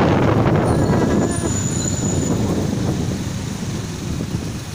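Noise of a moving motorcycle in city traffic: engine, road and traffic sound as a steady rush. It is loudest over the first second and a half, then eases a little.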